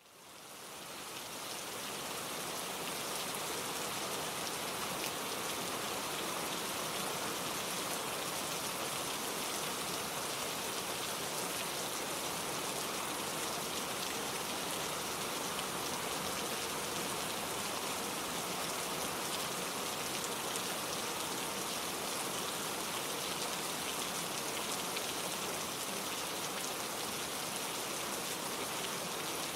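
Steady rain falling and pattering on surfaces, fading in over the first couple of seconds and then holding even.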